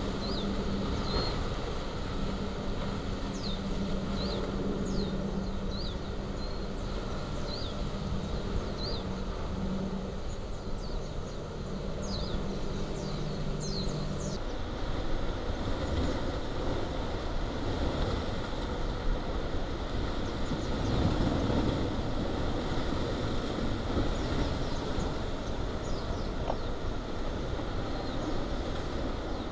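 Kilauea fissure lava fountain jetting: a loud, steady, deep rushing noise. Short high chirps sound over it through the first half and again near the end.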